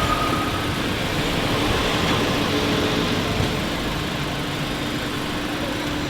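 Car engine running steadily, an even hum and rush with no change in pitch.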